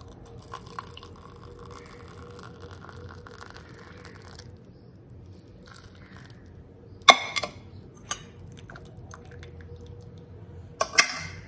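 Milky tea poured through a stainless-steel mesh strainer into a ceramic mug: a soft steady trickle for the first few seconds, then only dripping from the strainer. A few sharp clinks in the second half are the loudest sounds.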